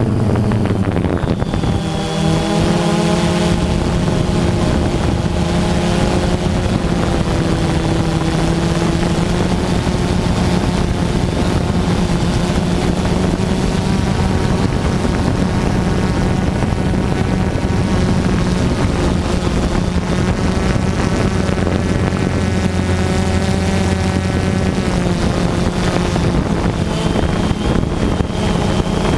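FPV quadcopter's electric motors and propellers running in flight, picked up by its onboard camera: a steady buzzing whine whose pitch drifts up and down as the throttle changes.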